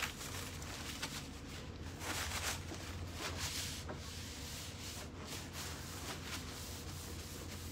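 Cleaning cloth scrubbing back and forth over the wood finish of a dresser side, a repeated rough swishing, while sprayed-on cleaner lifts old nicotine grime. A low steady hum sits underneath.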